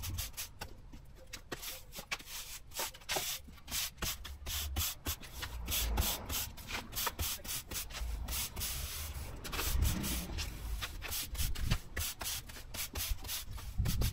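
Stiff broom sweeping sand across a driveway to re-sand the joints, a run of short, irregular scraping strokes.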